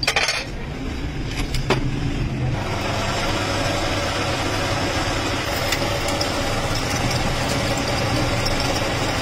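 Metal lathe with a few sharp metal knocks in the first two seconds, then its motor running steadily from about two and a half seconds in, with a low hum.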